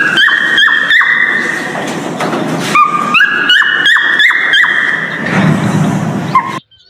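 Male cockatiel whistling its mating call: a run of clear whistled notes, several sliding upward in pitch, broken by quick short chirps. It cuts off abruptly near the end.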